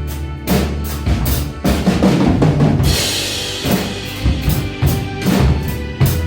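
Acoustic drum kit played along with a backing music track: a steady kick-and-snare beat, with a cymbal crash ringing out about three seconds in.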